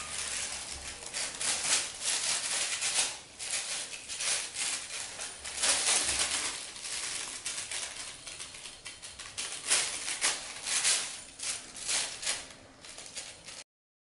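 Clear plastic sheet crinkling and rustling in irregular bursts as a cat paws and pushes at a cardboard toy wrapped in it. It cuts off near the end.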